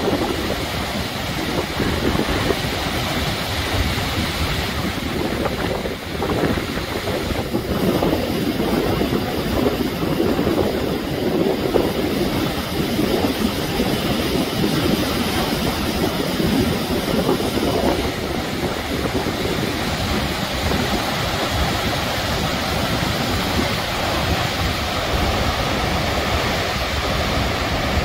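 Sandstone Falls on the New River: white water pouring steadily over wide rock ledges and through rapids.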